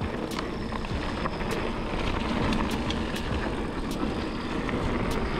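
Mountain bike tires rolling over a dirt singletrack with wind rumbling on an action camera's microphone, and sharp clicks and rattles from the bike at irregular moments over bumps.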